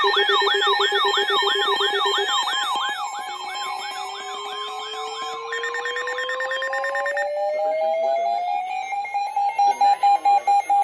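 Several electronic weather-alert alarms sounding over one another for a severe thunderstorm warning. Fast wailing tones fade out over the first several seconds while a tone rises slowly in pitch. Loud pulsed beeps, about three a second, start near the end.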